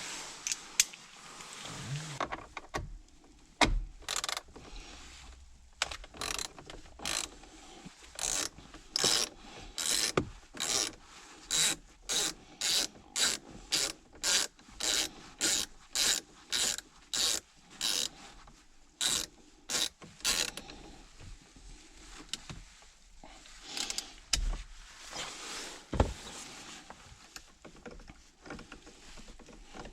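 Ratchet wrench clicking in a long run of quick, even strokes, about one and a half a second, as it backs out a Torx bolt holding a car's steering-wheel airbag, with scattered clicks and handling before and after the run.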